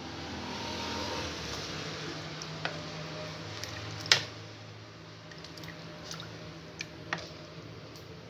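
A wooden spoon stirs sugar, water and citrus pieces in a metal pot, with the liquid sloshing and squishing. The spoon knocks against the pot a few times, loudest about four seconds in, over a low steady hum.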